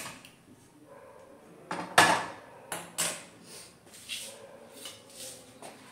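A nonstick frying pan set down with a clatter on a gas stove's metal burner grate about two seconds in, with a few smaller clicks and knocks around it.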